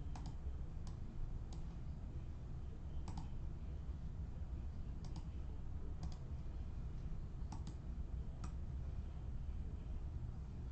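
Scattered short, sharp clicks, about a dozen, several coming in quick pairs, over a steady low hum.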